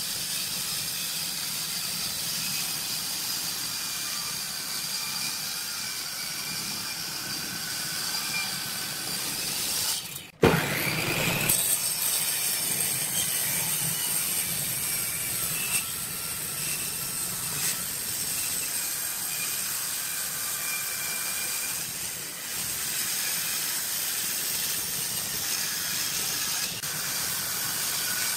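Wood lathe running while a turning tool cuts the spinning wood blank: a steady hiss of shaving wood with faint wavering whines. It breaks off briefly about ten seconds in and resumes louder.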